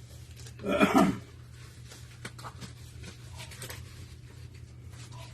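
A single short, loud vocal sound about a second in, over a steady low hum and a few faint clicks.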